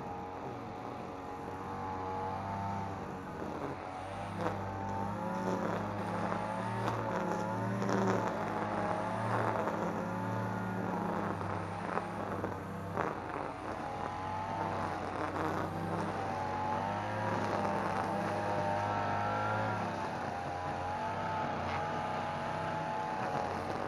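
A NAC BC520V two-stroke petrol brushcutter running at cutting speed. Its engine pitch wavers up and down as it swings through tall grass, and its nylon line crackles through the stalks.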